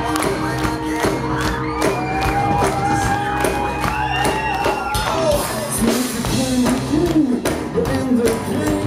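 A rock band playing live and loud: electric guitars, bass and steadily hit drums, with a melodic line held and bent over it in the first half and a voice singing in the second half.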